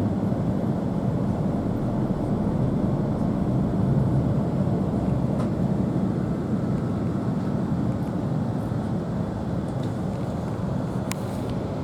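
Steady low rumble of an E2-series Shinkansen heard from inside the passenger car while the train runs, with a faint click about five seconds in and a sharper one near the end.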